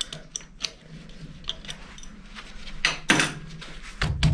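Small metallic clicks and clinks of a spanner working the nut off a lathe cross-slide handwheel, with a louder clatter about three seconds in and a low thump near the end.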